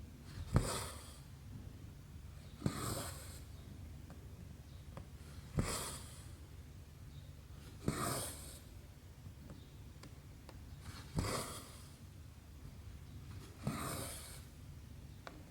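Hand cross-stitching on 11-count canvas: six times, a sharp tick as the needle goes through the fabric, followed by a short swish of thread being drawn through, about every two and a half to three seconds.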